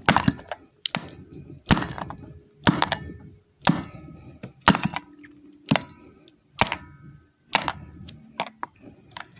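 Repeated sharp knocks, about one a second, with light clattering between them, from a remote control being worked on with tools.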